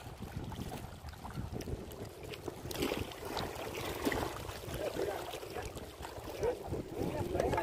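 Wind buffeting the microphone outdoors as a steady low rumble, with faint distant voices in the background in the second half.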